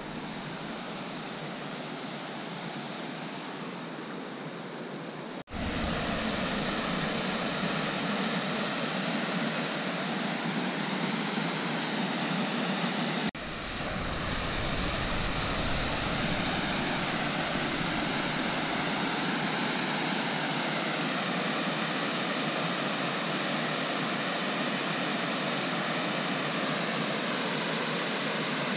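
Steady rushing of a waterfall cascading over rock ledges. The sound breaks off sharply twice, about five and thirteen seconds in, and comes back louder each time.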